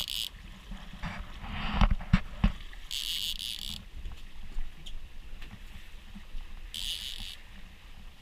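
Fishing reel drag buzzing in three short bursts as a hooked fish pulls line off during the fight, with a few sharp knocks about two seconds in, over a low steady rumble.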